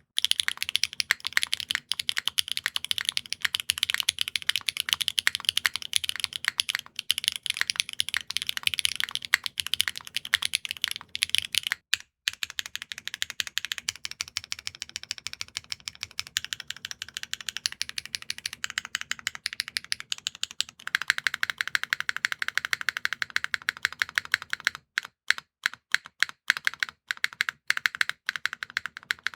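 Typing on a custom mechanical keyboard: HMX Yogurt S linear switches soldered on a Singa Unikorn 2.1 with an aluminium plate and GMK keycaps, giving a fast, continuous run of key clacks. Typing pauses briefly about twelve seconds in, and near the end it slows to separate keystrokes.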